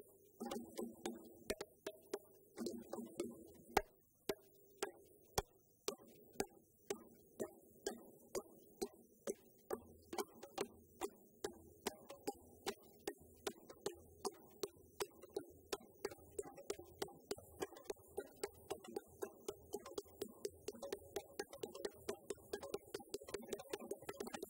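Djembe hand drumming: sharp slaps and tones in a steady rhythm, the strokes coming closer together over the second half.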